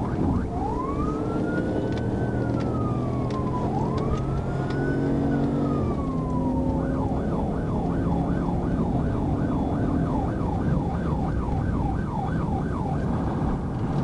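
Police car siren: two slow rising-and-falling wail cycles, then a switch about seven seconds in to a rapid yelp of about three sweeps a second. Underneath is the patrol car's engine and road noise as it accelerates hard to high speed.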